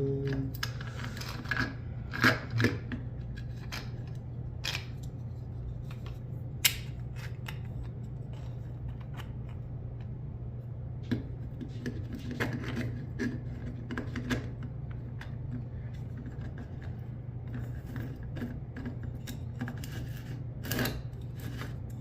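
Scattered clicks and light knocks of hard plastic 3D-printed vise parts being handled and fitted together, over a steady low hum.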